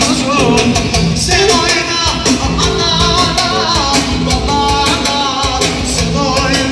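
Loud live dance music from a band with electric keyboard: a fast, steady drum beat under a wavering, ornamented lead melody, through the hall's loudspeakers.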